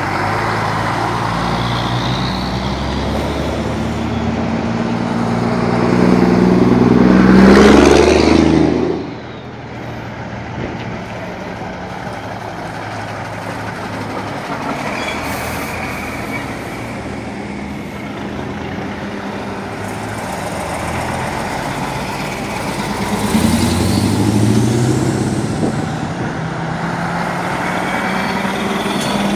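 Heavy vintage diesel lorries driving past close by, one after another. The loudest pass is about seven seconds in: its engine note rises, then drops away suddenly. A second rising engine pass comes around twenty-four seconds in.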